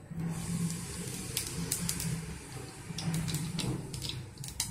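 Mustard seeds in hot sesame oil, sizzling and starting to splutter: a hiss with scattered sharp pops, a few at a time, that come more often toward the end.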